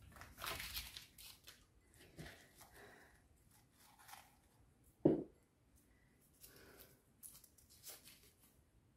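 A small folded paper slip being handled and unfolded: light crinkling and rustling of paper, with a single dull knock about five seconds in.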